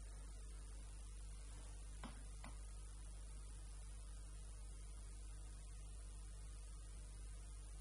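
Steady low mains hum with a faint hiss, and two faint clicks about two seconds in.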